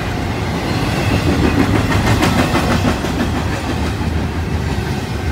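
Intermodal freight cars rolling past on the rails: a steady rumble of steel wheels, with a run of rapid clicking over rail joints about two seconds in.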